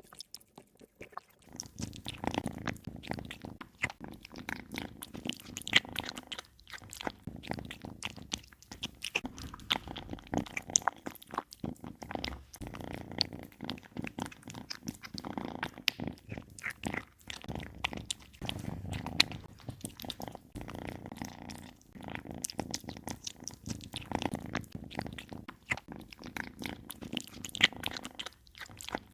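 Kittens eating, chewing and biting their food with many small, quick crunches.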